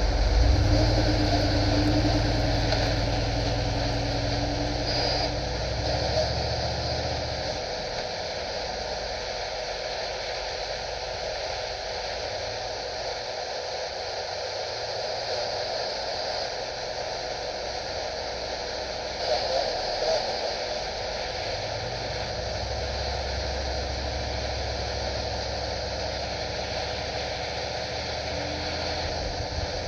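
Steady hiss of radio static from a CB receiver, with a low engine rumble under it that fades out about seven seconds in and comes back near the end.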